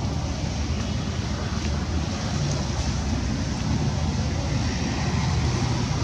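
Steady low rumble with a fainter hiss above it, unbroken and even in level, with no animal calls.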